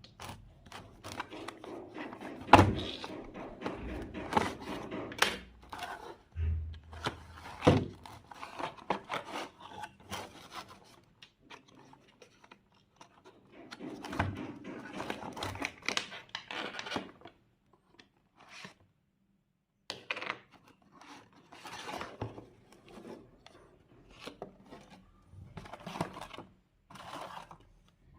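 Handling noises from unboxing a small mini fan: irregular rubbing, scraping and rustling of the packaging and the fan, with occasional knocks. The loudest knock comes a couple of seconds in, and there are short quiet pauses.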